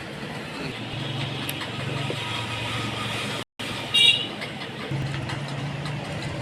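Steady background noise like road traffic, with a short high-pitched horn-like toot about four seconds in, just after the sound cuts out for a moment.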